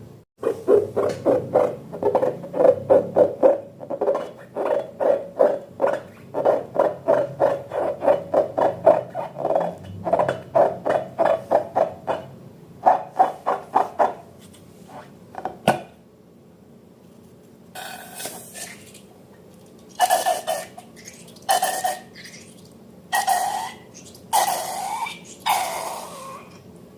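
Slime being squeezed and kneaded by hand: a quick run of wet squelches and small air pops for about fifteen seconds. After a short pause come several separate, longer squelching bursts.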